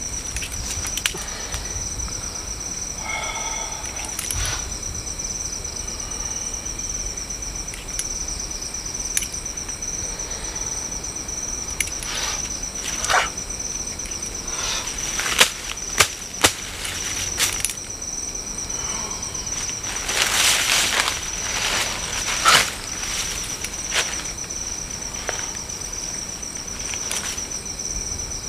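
Steady night insect chorus, a continuous high pulsing trill. Over it come scattered crackles and rustles of dry leaf litter being handled on the ground. There are a few sharp clicks about midway, and a longer, louder bout of rustling about two-thirds through.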